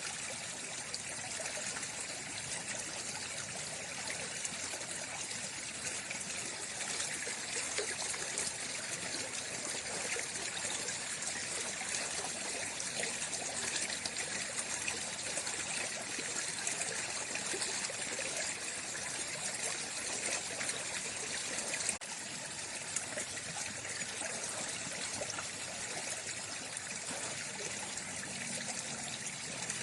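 Running water flowing steadily, a continuous even rush, dropping slightly in level about two-thirds of the way through.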